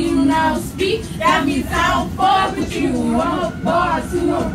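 Singing: a voice carrying a melody in short phrases, with a low rumble underneath.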